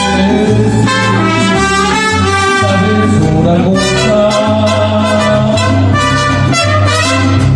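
Mariachi band playing an instrumental passage between sung verses: trumpets carry the melody over a walking bass line.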